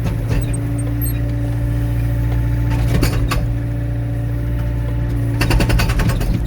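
Excavator's diesel engine running steadily. A couple of sharp knocks come about three seconds in, and a rapid burst of hammering from the hydraulic breaker comes near the end.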